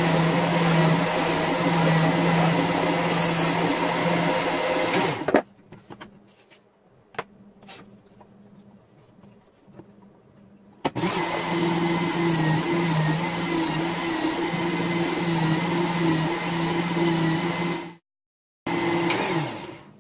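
WorkSharp Ken Onion knife sharpener's motor running its abrasive belt with a steady hum and hiss while a knife is sharpened. It switches off about five seconds in, leaving a few light clicks. It starts again about eleven seconds in, breaks off suddenly near the end, runs briefly once more and stops.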